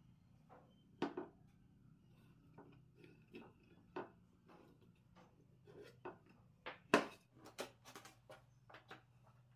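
Light clicks, taps and wooden knocks as the wooden arms of an adjustable router jig and a plywood board are handled and set down on a workbench, irregular and coming more often in the second half, the sharpest knock about seven seconds in.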